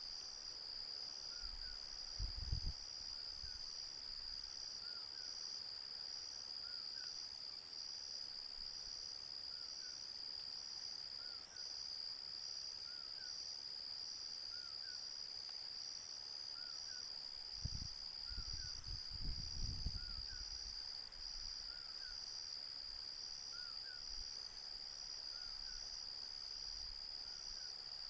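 Night insects calling in a steady high-pitched chorus, pulsing about one and a half times a second. Faint short chirps repeat every second or two beneath it, with a few brief low rumbles about two seconds in and again about two-thirds of the way through.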